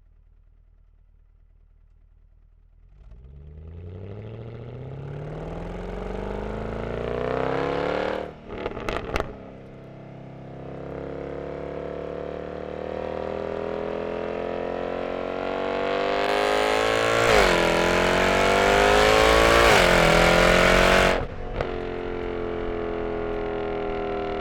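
2007 Mercedes-Benz E63 AMG's M156 V8 through a resonator-deleted exhaust. It comes in about three seconds in and pulls with steadily rising pitch, breaks off near eight seconds with a few sharp cracks, then climbs again louder through quick dips in pitch that sound like upshifts. It lets off suddenly near the end and settles into a steady drone.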